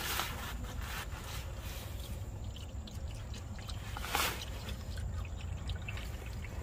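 Used motor oil pouring in a steady stream from the open drain hole of a V6 engine's oil pan into a plastic drain pan, a continuous trickling pour with the drain plug just removed. A brief louder noise about four seconds in.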